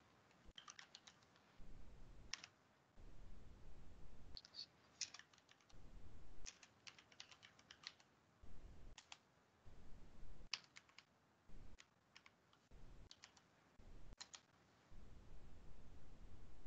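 Faint computer keyboard typing: short runs of keystrokes with pauses between them.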